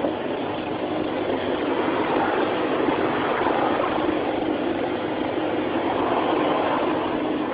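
Excavator engine running steadily, with a constant hum running through it.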